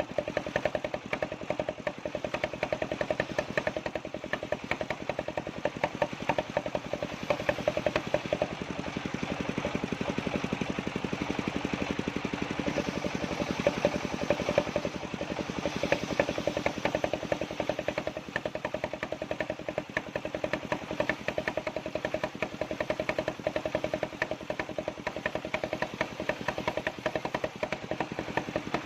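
Engine of a circular sawmill running steadily with a rapid, even pulse.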